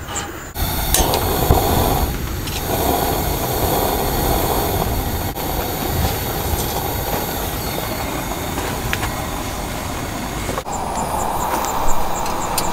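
Butane canister lantern being lit with a torch lighter: a couple of sharp clicks about a second in, then the burner's steady, loud hiss.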